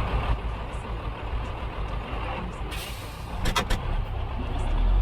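A low engine rumble, with a short burst of hiss a little past halfway and a few sharp clicks soon after.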